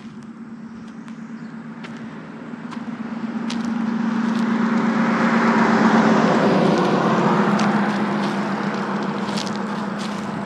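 A car passing by on a road: engine and tyre noise swells over several seconds, peaks about halfway through, then fades away.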